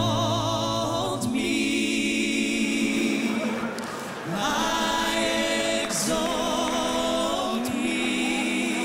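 A woman singing a gospel-style worship song into a microphone, holding long notes with vibrato, backed by voices singing in harmony.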